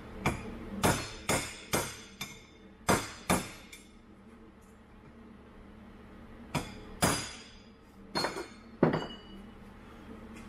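Hammer striking a heated bearing down onto a power divider input shaft held in a vise: a series of sharp, ringing metal blows, about seven in quick succession, a pause, then a few more. The bearing was not heated quite enough to drop on by itself, so it takes a few blows to seat.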